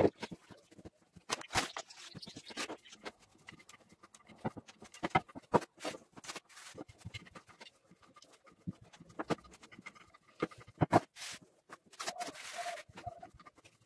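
A wooden rolling pin rolling out dough on a wooden tabletop: irregular knocks and taps of the pin and hands against the table, with a short noisy burst about twelve seconds in.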